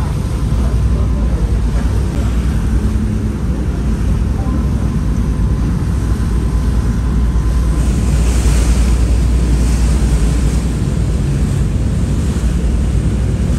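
Wind buffeting the microphone on a moving ferry, over a steady low rumble and the rush of water.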